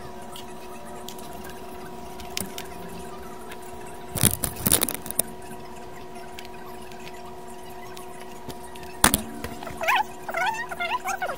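Handling clatter on a workbench as a mixer is reassembled and turned over: a burst of clicks and rattles about four seconds in and one sharp knock about nine seconds in, over a steady hum made of several fixed tones. Near the end, short high squeaky calls from an animal begin.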